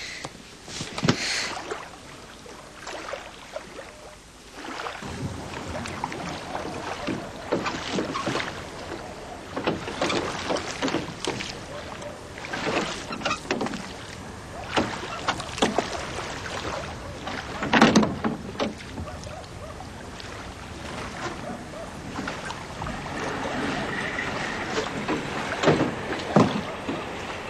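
Water splashing and lapping around a small rowboat, with scattered knocks of the boat and its gear. It starts quieter and picks up about five seconds in, with one louder knock or splash about two-thirds of the way through.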